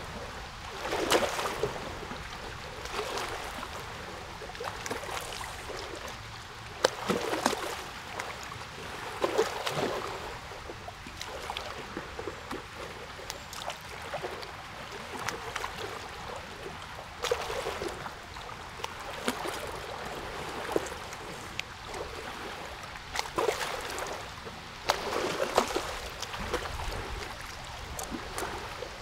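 Water lapping and splashing in irregular surges, with no voice or music.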